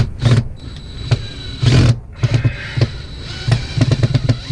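Cordless drill-driver backing out a mounting screw, the motor run in a string of short stop-start bursts with a high whine.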